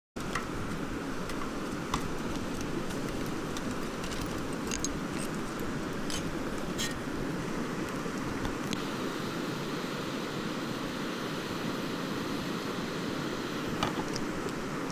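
Steady rushing of a clear mountain stream flowing over rocks, with a few faint clicks.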